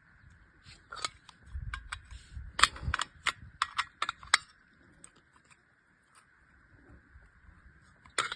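Metallic clicks and clacks of a Zigana pistol's parts being handled for disassembly, a quick run of sharp clicks over a few seconds followed by a few faint ticks.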